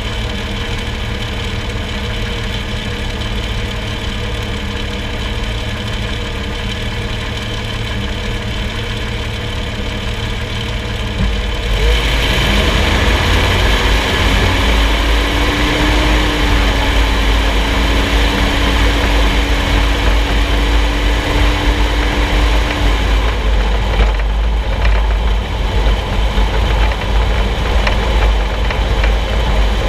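Engine of a solid-front-axle 4x4 idling steadily, heard from a camera under the front axle. About twelve seconds in the vehicle pulls away and the sound turns to a louder low rumble of road, tyre and engine noise, with a steady whine holding for several seconds in the middle.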